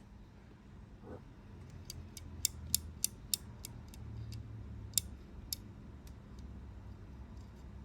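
A run of about a dozen sharp, light clicks, irregularly spaced a few a second, over a low steady hum.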